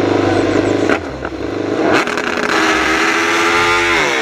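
Racing motorcycle engine revving, dubbed over a toy motorbike. It runs at a steady high rev, breaks up about a second in, and surges briefly around two seconds. Near the end the pitch dips and climbs again.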